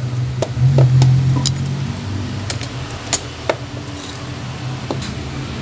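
Small irregular clicks and taps of repair tools against a phone's casing as it is being taken apart, over a steady low hum.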